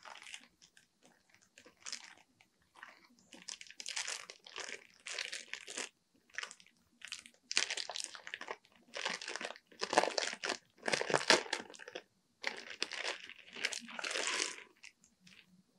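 Clear plastic packaging bags crinkling as hands handle and open them. The crinkling comes in irregular bursts, sparse at first and then busier and louder from a few seconds in, loudest around two-thirds of the way through.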